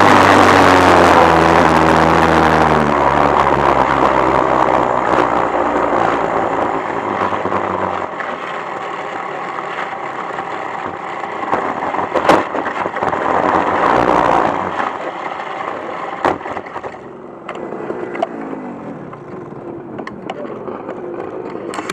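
Honda two-stroke shifter kart engine running at low revs off the throttle, its pitch sagging as the kart slows, then fading away over the following seconds. A sharp knock about 12 seconds in, with light clicks and clatter as the kart rolls to a stop.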